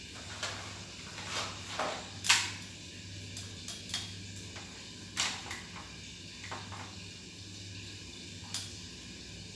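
Small items and packaging being handled on a table: scattered clicks, knocks and rustles, the loudest a sharp knock a little over two seconds in and another about five seconds in, over a steady low hum and hiss.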